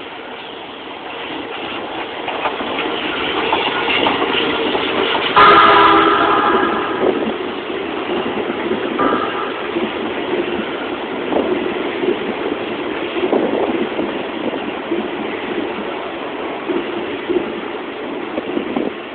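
Keisei electric commuter train approaching and running past at speed, its rumble building over the first few seconds. A train horn blasts once for about a second, around five seconds in. The wheels then clatter over the rail joints while the cars go by.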